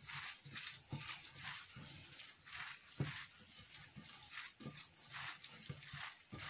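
A gloved hand squeezing and mixing cooked rice stuffing with onion and peppers in a glass bowl: soft, irregular squishing and rustling, with a light knock about three seconds in.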